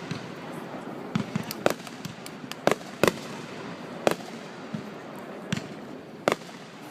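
Fireworks going off: a string of sharp bangs, about nine in seven seconds, some coming in quick pairs and triplets.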